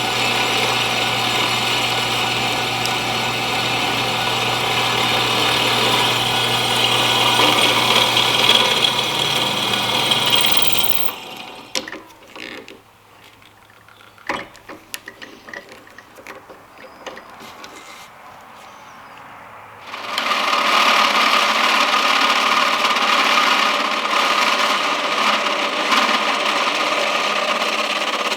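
Electric drill boring into timber, running under load for about eleven seconds and then stopping. A quieter pause with a few sharp knocks and clicks follows, then a power tool runs steadily again for the last several seconds.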